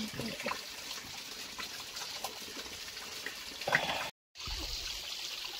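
Small stream trickling and splashing down stepped rock ledges, a steady sound of running water. A brief voice sound is heard about two-thirds of the way through, just before a short break in the audio.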